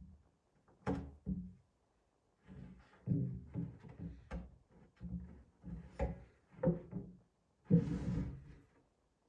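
Plywood cabinet parts being handled and fitted on the workbench: a run of irregular wooden thunks and knocks, then a short scraping rustle near the end.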